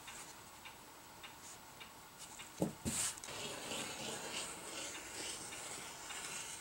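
Fabric and tape measure being handled on a cutting mat with faint light ticks, then a single knock about two and a half seconds in as the acrylic ruler is laid down. After it, a rotary cutter runs along the ruler through cotton fabric with a faint steady hiss.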